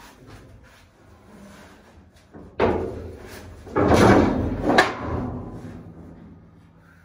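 A sharp knock, then about a second later a louder clattering bang with another hit in it, ringing away over the next two seconds.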